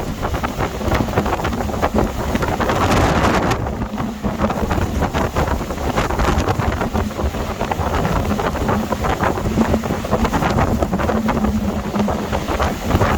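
Storm-force gale wind gusting and buffeting the microphone in a continuous rumbling roar, with a faint steady low hum under it in the second half.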